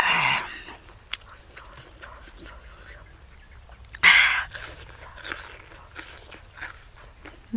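A person biting into crisp food and chewing it with crunching and smacking: two loud crunching bites, one at the start and one about four seconds in, with softer chewing clicks between them.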